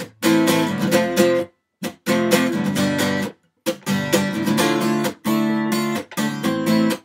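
Solo acoustic guitar strumming chords with no singing. The strumming stops dead several times, leaving short silent gaps about one and a half, three and a half, five and six seconds in.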